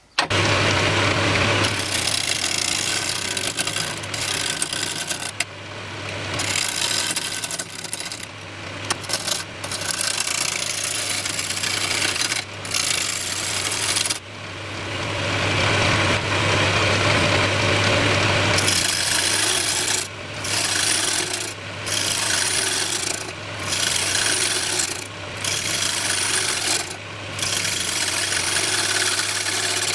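Wood lathe running with a steady motor hum while a hand-held turning tool cuts the spinning bird cherry bowl blank: a continuous scraping hiss of wood being shaved. In the later part the cut stops and restarts every second or two as the tool is lifted and set back on the wood.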